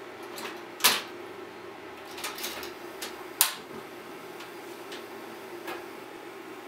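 A few sharp clicks and knocks of kitchen utensils and dishes against a tabletop and frying pan as chopped bacon is moved into the pan, the loudest about a second in and again about three and a half seconds in, over a steady low hum.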